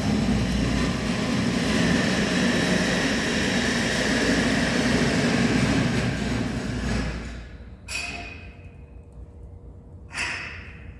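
Wood stove fire burning hard with a steady rushing roar that fades after about seven seconds, followed by two sharp knocks.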